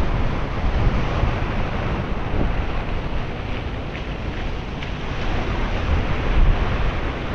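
Wind buffeting the microphone: a steady, noisy rush with a heavy low rumble.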